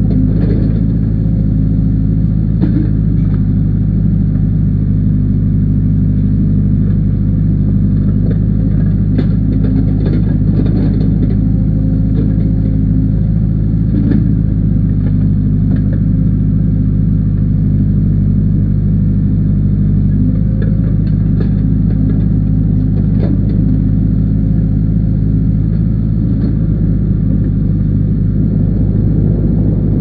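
Case backhoe loader's diesel engine running steadily under the operator's seat while the backhoe arm digs, with occasional light clicks and knocks.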